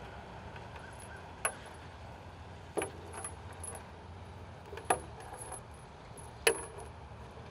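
Metal detector coil cable being wrapped around the detector's stem: four light, sharp clicks as the cable and its connector tap against the stem, with soft rustling of the cable between them.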